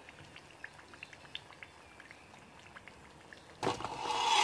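Hot oil with sugar frying sweet potato chunks: faint scattered crackling pops, then about three and a half seconds in a loud sizzling hiss.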